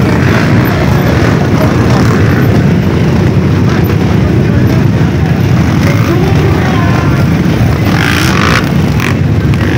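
Many dirt-bike engines running at once in a packed crowd of motorcycles, a loud, dense, continuous rumble.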